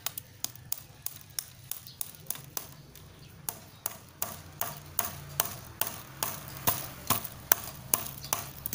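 Claw hammer driving a nail into a wooden stick: a steady run of light taps, about three a second, growing into heavier, louder blows from about four seconds in as the nail goes home.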